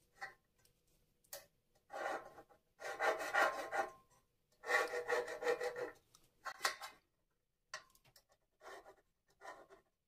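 Ballpoint pen scratching marking lines along a steel square onto metal cable trunking: several rasping strokes about a second long, then a few shorter ones near the end.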